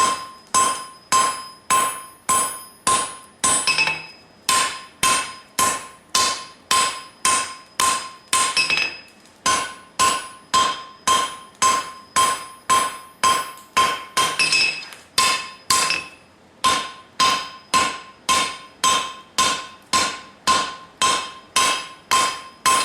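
Hand-hammer blows on hot leaf-spring steel over an anvil, drawing the bar down in width. The strikes come in a steady rhythm of about two a second, each with a clear ring, broken by a few short pauses.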